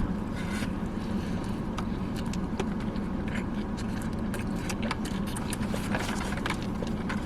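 Steady low hum of a car's interior, with faint small clicks of someone chewing food.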